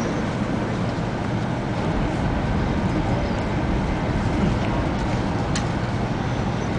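Shinkansen bullet-train cabin noise: a steady running rumble with hiss, and a single sharp click about five and a half seconds in.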